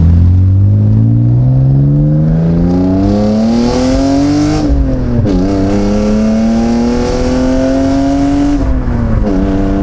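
Loud car engine accelerating in gear, its pitch climbing steadily. About halfway it drops sharply at an upshift and climbs again, then falls near the end as the throttle comes off.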